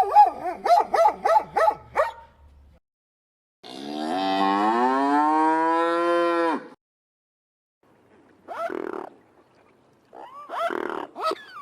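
A cow mooing: one long moo of about three seconds in the middle, rising a little in pitch. Before it a fast, wavering animal call trails off in the first two seconds, and near the end come a few short, higher animal calls.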